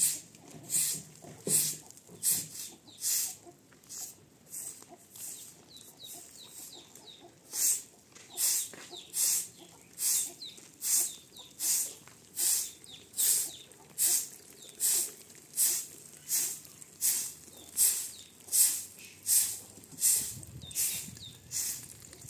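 Rhythmic scraping strokes, about one and a half a second, weaker for a few seconds near the start and then steady again.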